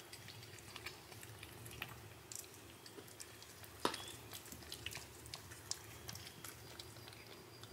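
Faint, irregular wet clicks and smacks of a cat licking and chewing canned cat food off a spoon, with one sharper click about four seconds in.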